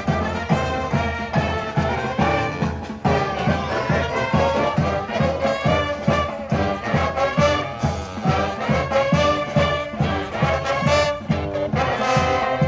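Street brass band playing live: brass horns carry the tune over a steady drum beat of about two to three strikes a second.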